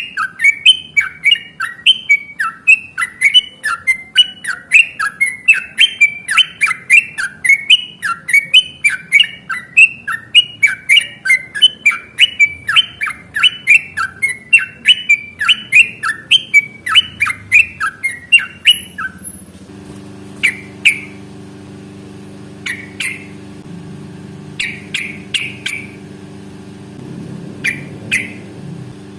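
Yellow-vented bulbul (trucuk) song: a long, fast run of repeated bubbly notes, two to three a second, that stops abruptly about two-thirds through. After it come only a few scattered single calls over a low steady hum.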